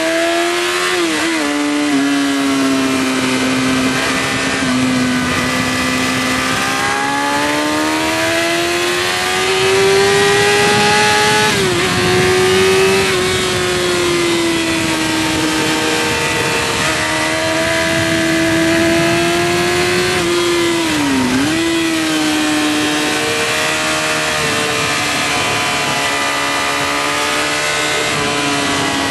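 Yamaha R6 sport bike's inline-four engine running at high revs on track, heard onboard with wind rush over it. The engine note climbs and sags slowly, with three brief sharp dips in pitch: about a second in, about twelve seconds in and about twenty-one seconds in.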